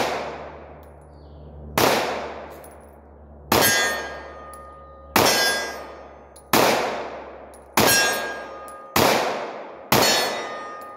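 Taurus PT1911 .45 ACP pistol firing eight single shots, about one every one and a half seconds, the last few coming a little quicker. Each shot echoes away, and several are followed by a short metallic ring.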